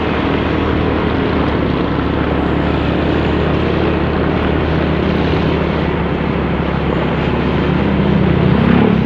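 Motorcycle engine running steadily while riding, with wind and road noise on the microphone. Near the end an engine note grows louder and a little higher.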